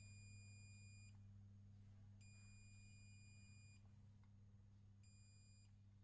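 Faint continuity beeps from a digital multimeter as its probes touch points on a circuit board during component testing: three high-pitched beeps, the last one short, over a low steady hum.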